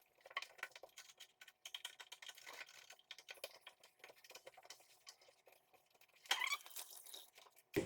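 Cloth wiping and rubbing over a refrigerator's plastic door liner and seal: rapid, irregular rubbing and light clicking, with a louder, sharper rub about six seconds in and a short knock at the very end.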